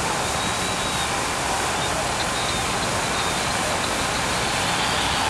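Large boxing-arena crowd cheering and shouting in a steady, dense wash of noise during the final exchanges of a bout, heard on an old 1960s television broadcast recording.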